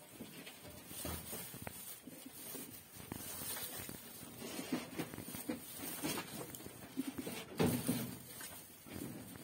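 Dry straw rustling and crackling as a doe rabbit roots through it and gathers mouthfuls, building her nest before giving birth; loudest about eight seconds in.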